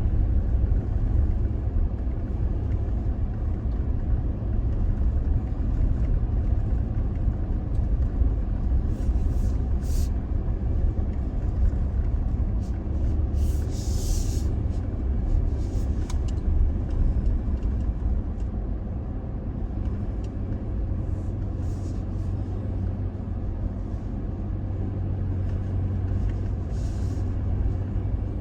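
Toyota Tacoma pickup driving along a graded dirt road: a steady low rumble of engine and tyres, with a few short hissy bursts, around ten seconds in, in the middle and near the end.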